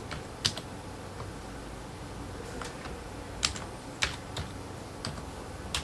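Computer keyboard keys being tapped one at a time as an email address is typed: about eight separate clicks at uneven intervals.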